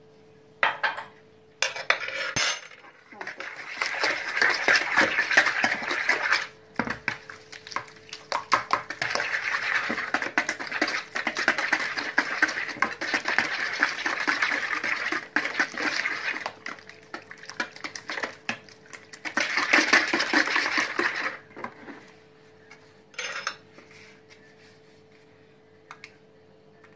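A metal wire whisk beating a thin egg, sugar and oil mixture in a bowl: rapid clicking and scraping of the wires against the bowl in long stretches with short pauses. It stops a few seconds before the end, leaving a few light taps.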